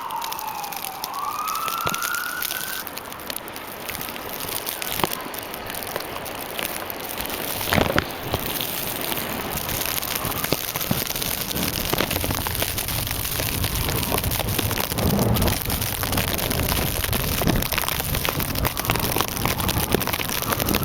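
Constant crackling of wind-driven snow pelting a plastic Ziplock bag wrapped over the camera. A siren wails in the first few seconds and starts up again near the end, and a low rumble joins about eight seconds in.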